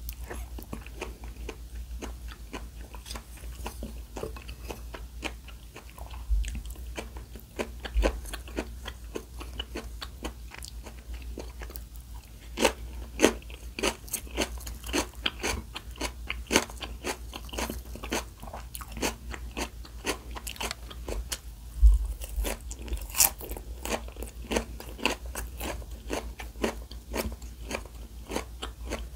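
Close-miked chewing and biting of crunchy food, with many irregular crisp crackles that grow denser and louder about halfway through, over a steady low hum.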